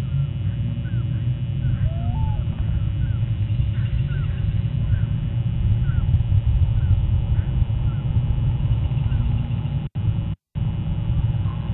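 Steady low outdoor rumble with a small bird chirping about twice a second over it and one lower call about two seconds in. The sound cuts out twice, briefly, near the end.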